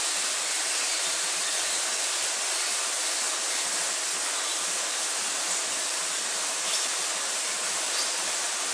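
Friction feeder running, its belts and rollers pulling cards off the bottom of the stack, heard as a steady hiss with a few faint ticks in the second half.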